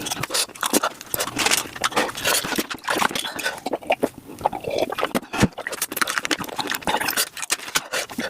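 Close-miked eating sounds played back at several times normal speed: a fast, dense run of chewing, crunching and wet mouth clicks, with brief squeaky pitched bits.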